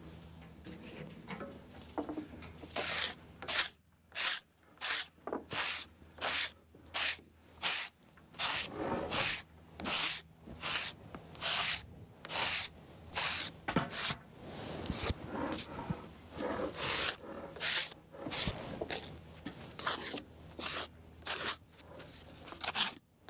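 A hand-held steel blade scraping bark off the edge of a fresh-sawn black locust board, in quick repeated strokes, about two a second, beginning a couple of seconds in.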